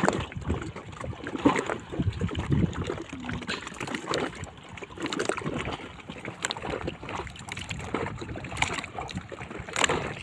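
Water sloshing and slapping around a small boat at sea, with scattered knocks and splashes.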